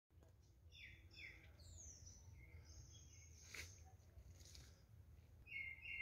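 Wild birds calling faintly in a wooded area: a pair of short chirps, a falling whistle, a held high note, and a louder chirped phrase near the end. A single sharp click comes about midway, over a low steady rumble.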